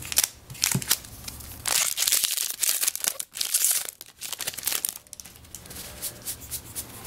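Foil wrapper of a Magic: The Gathering booster pack crinkling and tearing as it is picked up and ripped open, in several bursts through the middle.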